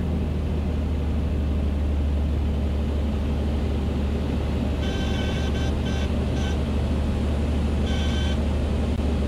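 Steady low drone of a Beechcraft A36 Bonanza's engine, propeller and airflow heard inside the cabin. A high, beeping cockpit warning tone sounds in short pulses about five seconds in and again briefly near eight seconds.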